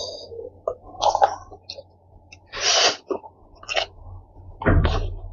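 A person slurping noodles and chewing. There is a hissing slurp of about half a second a little over halfway through, and a louder one with a low thump near the end, with wet mouth clicks between them.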